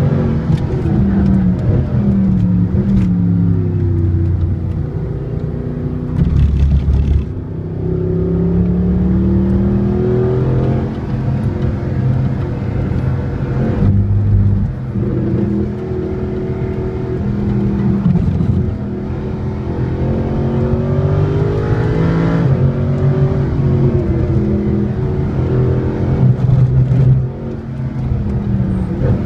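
Mercedes SLS AMG's 6.2-litre V8 with an Akrapovič exhaust, heard from inside the cabin on track. It accelerates hard, its pitch climbing through each gear and dropping back at the shifts, then rising again as the car lifts and brakes for corners.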